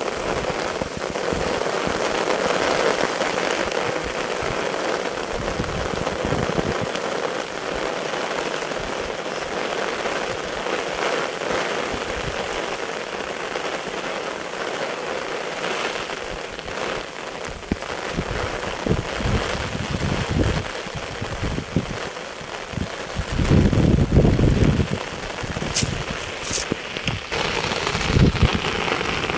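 Steady rain falling on paddy water and grass, an even hiss. In the second half, deep irregular rumbles and bumps come and go, the loudest about three-quarters of the way through.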